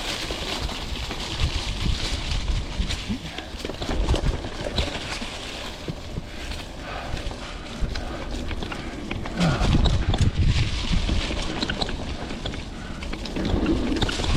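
Vintage Klein Attitude Comp mountain bike ridden along dirt single track, picked up by a chest-mounted camera: tyre and trail noise with many small rattles and knocks from the bike over bumps, and heavier low rumbles now and then.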